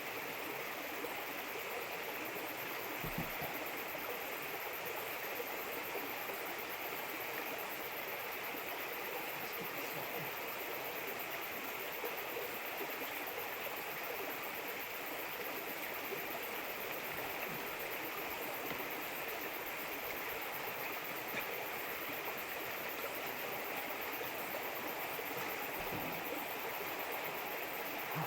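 Running water flowing steadily, with two faint low knocks, one a few seconds in and one near the end.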